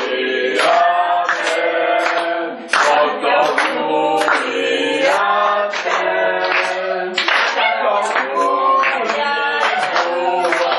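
A small group of people singing a birthday song together without accompaniment, clapping along in a steady beat.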